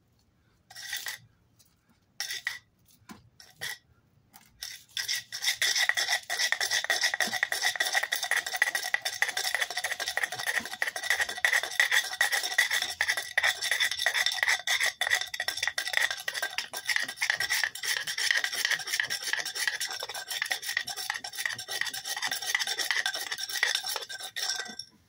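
A wooden board rolling a fire-roll tinder roll back and forth against concrete, a rasping scrub: a few short separate scrapes at first, then from about five seconds in fast, continuous rolling that stops suddenly just before the end. It is friction-fire rolling, heating the tinder roll toward an ember.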